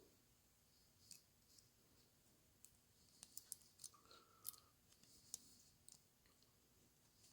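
Faint, scattered clicks and light handling noises as a grinder chain disc's chain, plates and clips are handled and fitted together, with a few sharper ticks in the middle.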